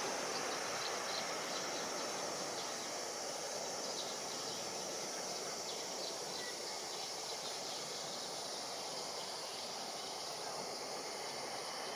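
Faint, wide hiss of a distant jet airliner rolling out after landing, slowly fading, under a steady buzz of insects.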